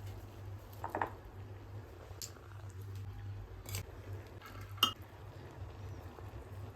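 Cooking utensils clinking against a pot a few times, the sharpest clink about two-thirds of the way through, over a steady low hum.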